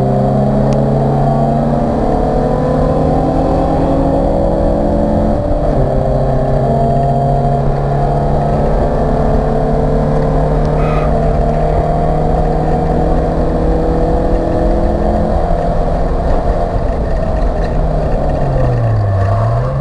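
Acura Integra race car's four-cylinder engine running hard under load, heard from inside the stripped cockpit. The engine note climbs slowly, breaks briefly about five seconds in, and near the end the revs dip and quickly come back up.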